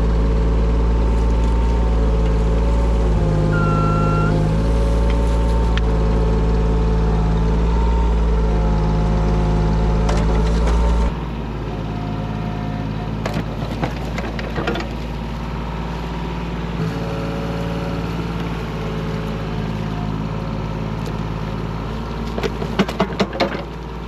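Mini excavator's diesel engine running steadily, with whining tones that shift in pitch as the hydraulics are worked. About eleven seconds in the sound drops, and scrapes and knocks of the bucket in soil and stones come through.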